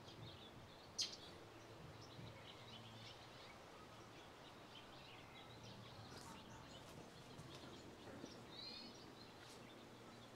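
Near silence, with faint bird chirps here and there, the clearest near the end, and one sharp click about a second in.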